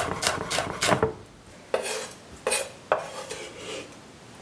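Chef's knife dicing green bell pepper on a wooden cutting board: rapid chopping at about four strokes a second that stops about a second in, followed by three separate sharp knocks.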